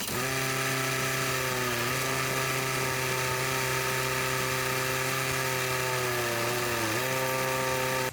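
A power tool's motor running steadily with a whine, its pitch dipping briefly twice: about two seconds in and again near the end.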